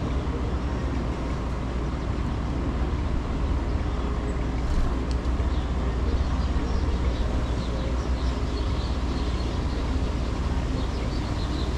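Steady low rumble of wind and city traffic, with small birds chirping in short high notes that grow frequent in the second half.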